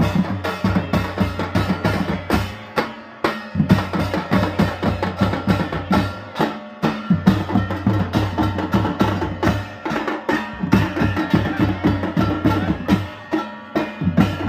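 A group of folk drummers beating large double-headed barrel drums with sticks in a fast, driving rhythm, with short breaks about three and seven seconds in.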